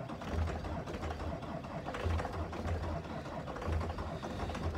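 Starter cranking the cold 2008 Duramax V8 diesel, heard from inside the cab: it turns over with uneven low pulses but does not start, with only five or six of its eight glow plugs working.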